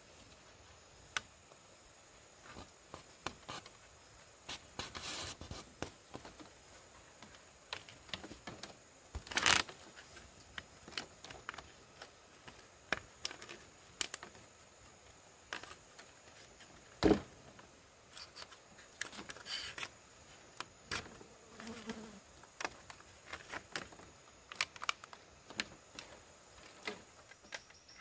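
Bamboo poles and woven bamboo panels being handled and fitted: scattered light taps, clicks and scrapes, with two sharper knocks about nine and seventeen seconds in.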